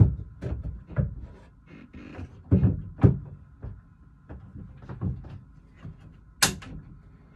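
Irregular wooden knocks and thumps as a clamped wooden shelf is shifted and pushed into place against a boat's cabin ceiling during dry-fitting, with one sharp, bright clack about six and a half seconds in.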